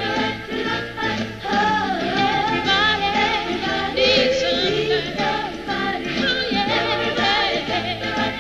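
Female vocal trio singing a soul-pop song in harmony over instrumental backing.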